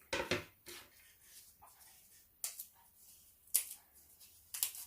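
Malabar nut and Indian borage leaves being cut by hand: about six short, crisp cuts at uneven intervals.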